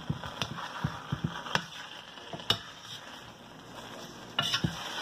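A metal spoon stirring and scraping chicken livers around a stainless steel frying pan, with scattered sharp clinks against the pan, a cluster of them near the end, over a low sizzle of the frying food.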